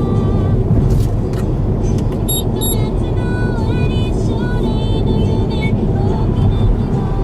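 Steady road and engine noise inside a car travelling at expressway speed, a dense low rumble. Faint thin tones waver over it.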